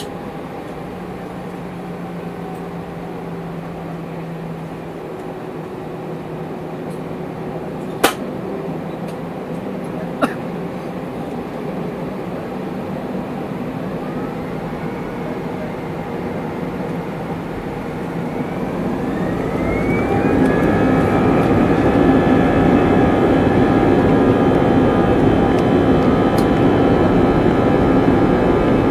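Airbus A320's CFM56-5B turbofan engines heard from inside the cabin, first humming steadily at low thrust, then spooling up for takeoff with a rising whine about halfway through. The sound settles into the louder, many-toned buzzsaw drone of the fan at takeoff thrust. Two sharp clicks come about a third of the way in.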